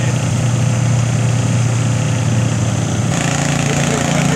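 Pulling tractor engines running steadily, a loud, even drone. About three seconds in the sound grows brighter as a second engine note joins in.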